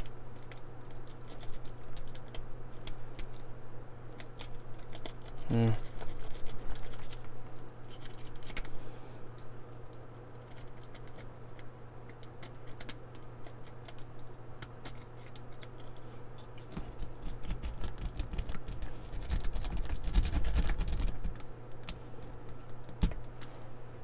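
Steel wave rake pick being raked in and out of a laminated steel padlock's pin-tumbler keyway against tension from a tension wrench: a long run of quick irregular metal clicks and scrapes as the pins are struck. There is low handling rumble near the middle of the second half.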